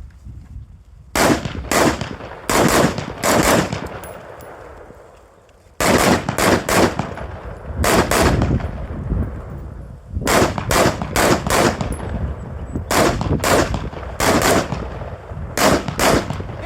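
Gunshots fired rapidly in pairs and short strings of two to four, with short pauses between groups as the shooter moves through a practical shooting course of fire. There are about twenty shots, with a longer lull around four to six seconds in.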